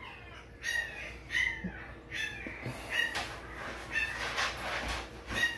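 One-week-old XL American Bully puppy crying in short, high squeals, about one a second.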